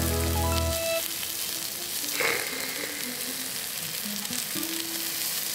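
Slices of frozen pork belly sizzling in a hot pan, a steady frying hiss. A bit of background music runs under it for the first second.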